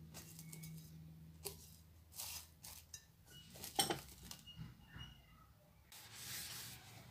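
Faint handling sounds of plastic cling film being stretched over a bowl of dough: a few light clicks and taps and soft crinkling, with a brief rustle near the end, over a low steady hum.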